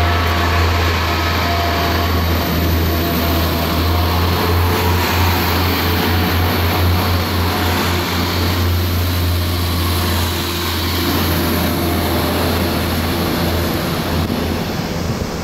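Class 142 Pacer diesel multiple unit moving along the platform and pulling away, its underfloor diesel engines giving a steady low drone under rail and wind noise. The drone weakens near the end as the train draws off.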